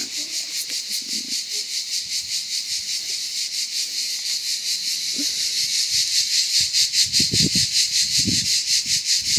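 A chorus of cicadas buzzing loudly in a high, dense drone that pulses evenly about four times a second.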